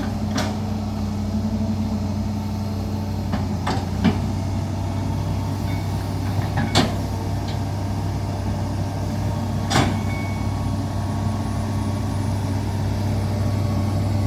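Large excavator's diesel engine running steadily with a deep hum, and a handful of sharp knocks scattered through it.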